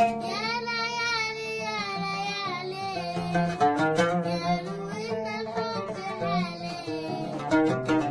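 A young girl singing a high, wavering melody in Arabic style, accompanied by an oud being plucked.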